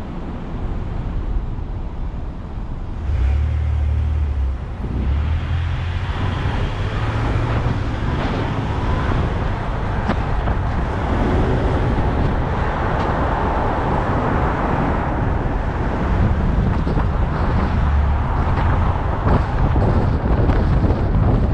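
A car driving in traffic: steady engine and road rumble that gets louder about three seconds in.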